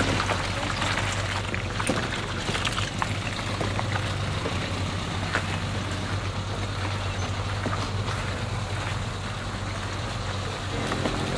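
Engine of a small Suzuki 4x4 running steadily at low speed as it crawls through mud and water on a rocky track. Its tyres splash and churn the mud, and stones knock now and then.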